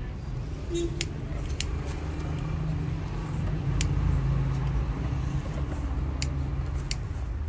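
Street traffic: a motor vehicle's engine running nearby as a steady low rumble, with a few short, sharp clicks over it.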